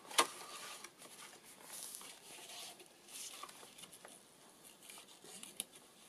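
Faint paper rustling and light handling noises as hands move over the pages of a handmade paper journal and its coin envelope, with one sharp tap just after the start.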